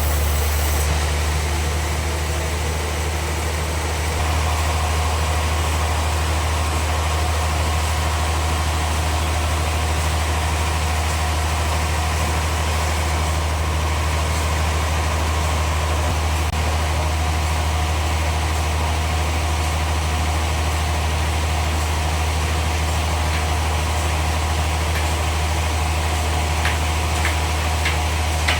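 Band saw sawmill machinery running steadily with a strong low hum. A steady higher tone joins about four seconds in, and a few light clicks come near the end.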